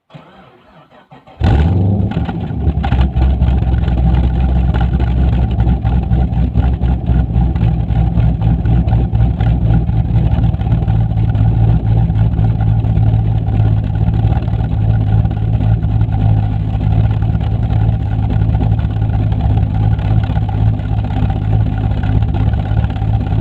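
Cammed VE Commodore SS V8 with extractors and a custom exhaust starting: a brief crank, then it catches with a flare about a second and a half in. It settles into a loud, steady, lumpy idle from its aftermarket cam.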